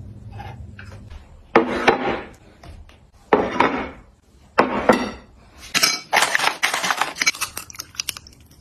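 Hard kitchenware clinking as it is handled and set down: three short bursts of clinks, then a longer run of rattling clinks about six seconds in.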